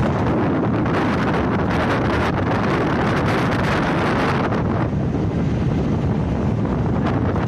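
Loud, steady wind buffeting the microphone, with a heavy low rumble.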